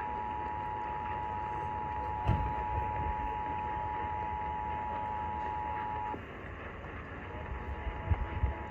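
Emergency Alert System two-tone attention signal, two steady tones sounding together over a hissy off-air broadcast, marking the start of an EAS test. The tone cuts off about six seconds in and returns fainter about a second later, with a few low thumps in the background.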